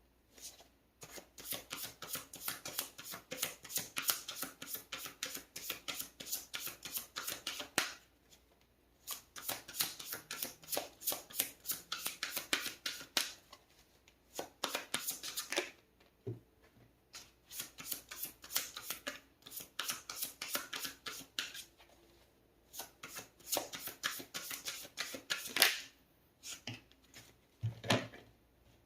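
A tarot deck shuffled by hand: several runs of rapid card flicking, each lasting a few seconds, with short pauses between them, and a thump near the end.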